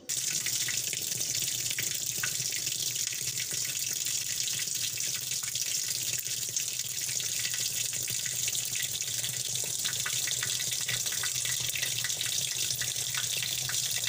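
Water pouring from the inlet of an LG twin-tub washing machine into its plastic wash tub, filling it for a wash: a steady splashing rush that does not let up.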